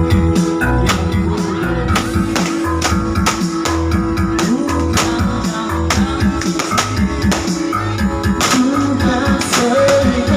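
Music with guitar over a heavy bass line and a steady drum beat, played loud.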